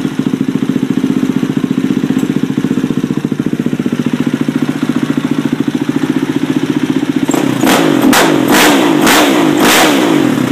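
Husqvarna 510 SMR's single-cylinder four-stroke engine idling through a Big Gun slip-on exhaust, steady and pulsing. Near the end the throttle is blipped about five times in quick succession, each rev rising and dropping back.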